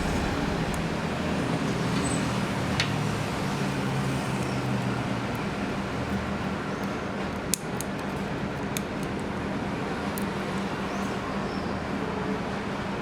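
Steady background hum and hiss with a few sharp small clicks, the loudest a little past the middle.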